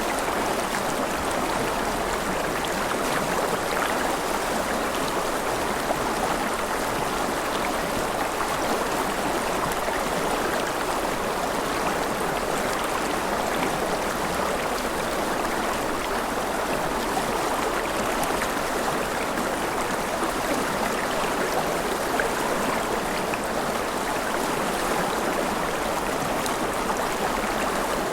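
Forest river flowing steadily over rocks, a continuous even rush and babble of water.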